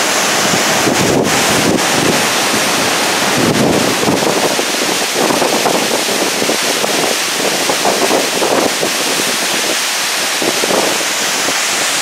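Tall waterfall at close range: a loud, steady rush of falling water, with spray and wind buffeting the microphone in irregular gusts.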